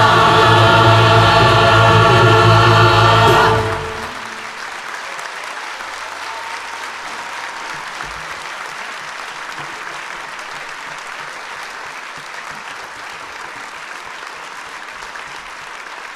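Mixed choir singing with band accompaniment, cutting off sharply about three and a half seconds in, followed by steady audience applause.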